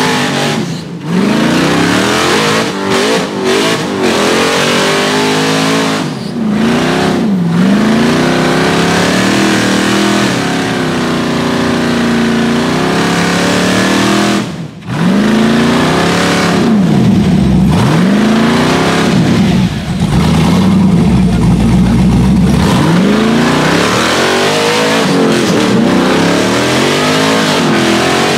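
Rock buggy's engine revving hard and repeatedly, its pitch climbing and falling with each stab of throttle, with brief lifts about 1, 6 and 15 seconds in, as the tires spin on rock and mud.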